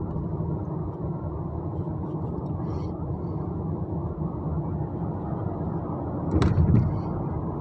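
Car driving, heard from inside the cabin: a steady low rumble of engine and tyres on the road, with a short knock or bump about six and a half seconds in.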